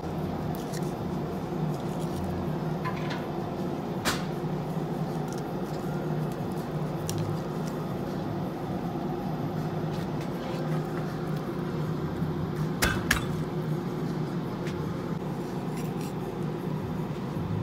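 Steady low hum with scattered sharp clicks and knocks from a kitchen knife working into a whole amberjack behind the gills on a cutting board. The loudest click comes about four seconds in, and a close pair comes near thirteen seconds.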